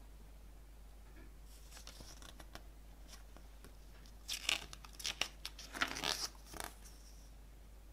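A CD's paper lyrics booklet being handled and its pages turned: paper rustling and crinkling, faint at first, then a flurry of louder crackles between about four and seven seconds in.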